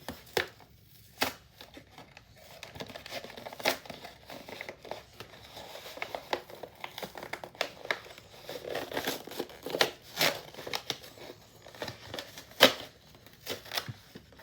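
Plastic toy packaging crinkling and tearing as it is handled, with irregular sharp clicks and snaps, the loudest near the end.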